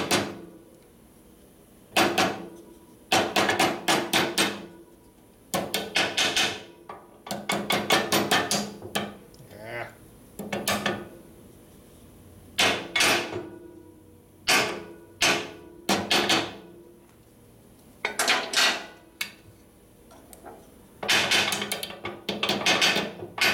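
Hammer tapping on metal at a motorcycle swing-arm pivot, driving a part into place. It comes in about nine short bursts of quick, light blows, with pauses of a second or two between them.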